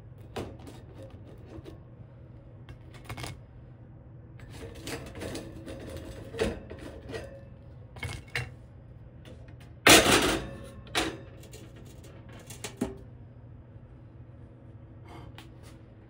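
Light clicks and clatters of a utensil against a toaster oven's wire rack and a plate as toasted English muffin halves are lifted out, with one loud clatter about ten seconds in.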